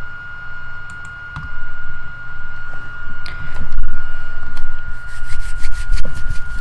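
Scattered clicks of a computer mouse, then a quick run of clicks and rustles near the end, over a steady high-pitched whine and a low rumble.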